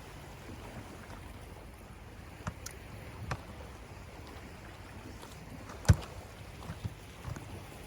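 Steady low wash of sea water and wind, with scattered sharp knocks and clicks; the loudest knock comes about six seconds in.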